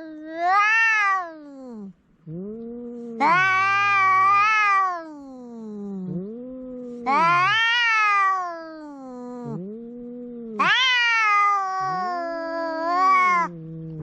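Two cats yowling at each other in a standoff before a fight: a low, drawn-out growling yowl with a higher wailing call over it. The higher call comes about four times, each a long rising-and-falling wail.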